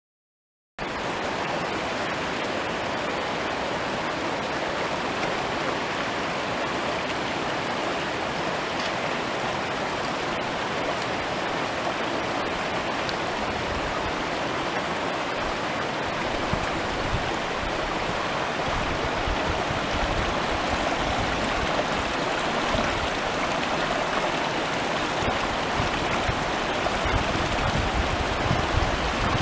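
Mountain stream running over rocks and between snow banks, a steady rush of water that starts abruptly about a second in.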